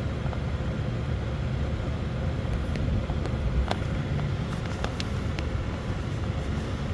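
Steady low rumble of a motor vehicle, with several light clicks in the middle.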